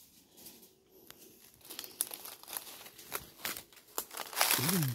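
Crinkling and rustling handling noise with scattered sharp clicks, starting after about a second and a half and growing denser, with a louder rustle and a short up-and-down call near the end.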